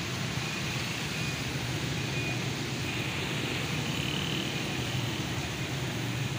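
Steady background hum of motor traffic on a flooded city road, with no single vehicle standing out.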